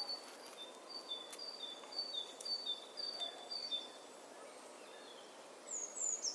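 A bird calling over faint outdoor background noise: short high chirps alternating between two pitches, about two a second, for the first four seconds, then a few higher falling notes near the end.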